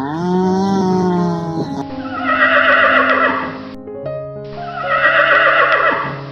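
Horse whinnying twice, two long quavering calls about two seconds apart, after a rising pitched call at the start, over background music.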